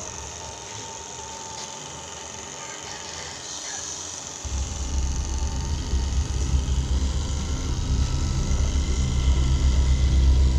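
RC crawler truck driving, a low rumble that starts about four and a half seconds in and grows louder.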